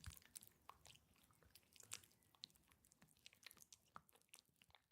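Faint, irregular wet, sticky clicks and crackles of close-up ASMR sounds, thinning out near the end.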